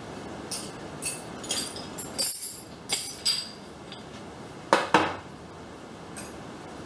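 Metal mower-deck spindle parts clinking and knocking as they are handled and fitted: a run of light clinks, then two sharper knocks in quick succession about halfway through, and one more light clink later.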